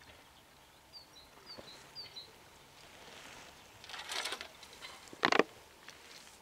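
A small bird gives three short, high, falling chirps about a second in. Later comes a rustle, then a sudden brief loud noise about five seconds in.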